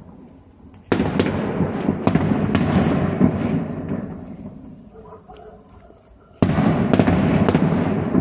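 Fireworks salute: two sudden loud bursts, about a second in and again near the end, each followed by crackling that fades away over a few seconds.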